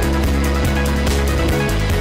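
Background music, with low held notes that change near the end.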